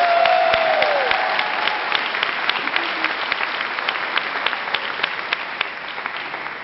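Audience applauding, with dense hand-clapping that slowly tapers off. In the first second one voice gives a rising and falling whoop over the clapping.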